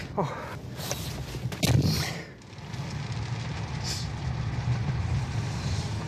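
Strong wind gusting against the microphone, then a car driving along a road with a steady low rumble.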